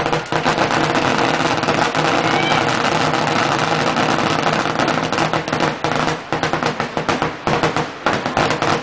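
Fireworks finale: a dense, unbroken barrage of shells bursting, with rapid overlapping bangs and crackle.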